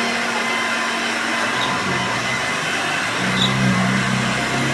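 Hoover Junior 1334 upright vacuum cleaner running steadily, its 250-watt motor and metal fan a little bit noisy; the machine is due a rebuild. A lower hum joins about three seconds in.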